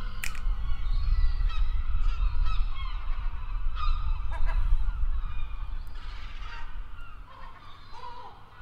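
Gulls calling in short arched cries over a heavy low rumble, which fades toward the end.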